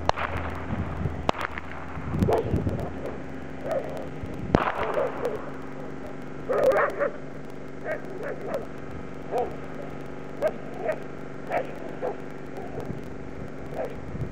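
Belgian Malinois barking in short, separate barks, roughly once a second through the second half. A few sharp knocks come in the first few seconds.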